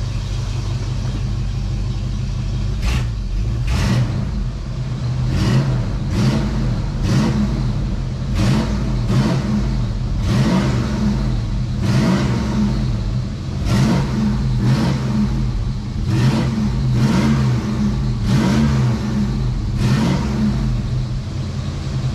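Fox-body Mustang's 5.0 V8 blipped repeatedly from idle, about one quick rev a second, each time dropping straight back to a steady idle. With its EGR valve freshly cleaned, the engine no longer stumbles or stalls.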